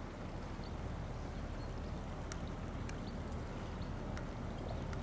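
Steady low rumble and hiss of outdoor ambience, with a few faint, short high chirps scattered through it.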